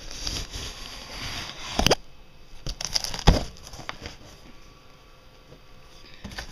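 A knife slitting the packing tape along the seam of a cardboard box, a scratchy rasp that ends in a sharp snap about two seconds in. Then the cardboard flaps are pulled open with a few knocks and rustles, the loudest about three seconds in.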